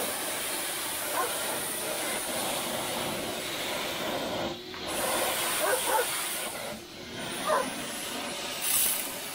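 Pressure washer spray hissing as it blasts dirt and grime off a car engine. It drops off briefly twice, about halfway through and again about two seconds later.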